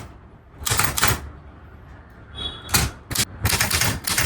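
Manual typewriter keys being struck in short runs of sharp clacks, with quiet gaps between the runs and a brief ringing tone about halfway through.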